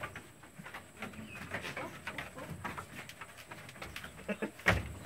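Goats moving about on a slatted wooden pen floor, with faint low sounds and shuffling and one sharp knock about four and a half seconds in.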